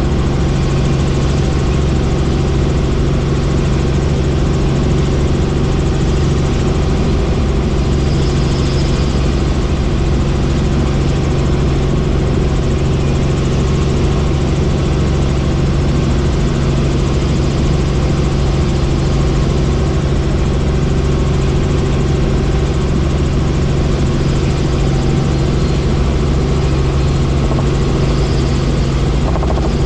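Helicopter in flight: steady, loud rotor and engine noise with a constant low hum.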